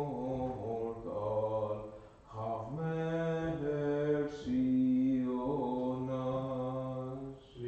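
Orthodox liturgical chant: voices singing a slow hymn in long held notes over a steady low tone, with short breaks for breath about two seconds in and near the end.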